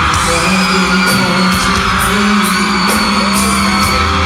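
Live pop band music over a loud PA, an instrumental passage with a steady drum beat and sustained notes.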